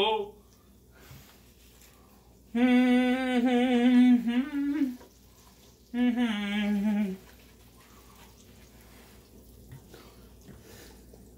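A man humming a tune in two phrases of held, slightly wavering notes. The first runs from about 2.5 s to 5 s in, and a shorter one follows about a second later. It is quiet between the phrases and after them.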